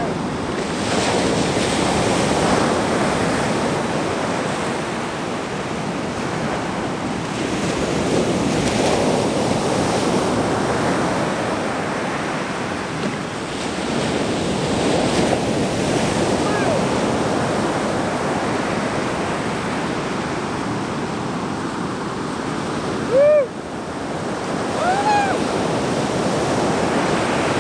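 Ocean surf breaking and washing up the beach in slow swells, with wind on the microphone. About three quarters through comes one short, loud cry that rises and falls in pitch, followed by a couple of fainter ones near the end.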